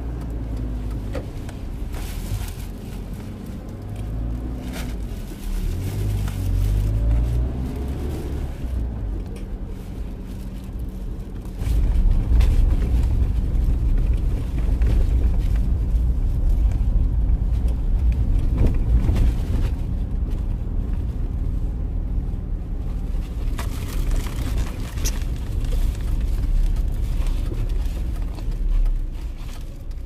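Car driving slowly through town traffic, heard from inside the cabin: a steady low rumble of engine and road noise that gets louder about twelve seconds in.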